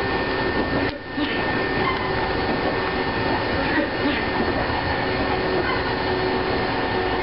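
Eizan Electric Railway electric railcar running along the track, heard from inside the driver's cab: a steady rumble of wheels and running gear with a faint steady tone over it, briefly dropping about a second in.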